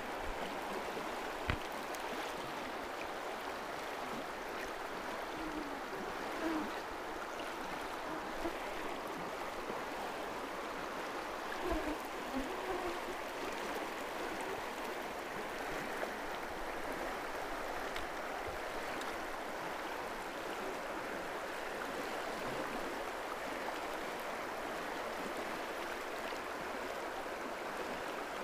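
Steady rushing of a river's current, with a couple of faint knocks.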